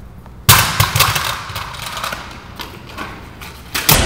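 A stunt scooter landing hard on a concrete floor about half a second in, then its wheels rolling and clattering. A second sharp impact comes near the end as the rider reaches the grind rail.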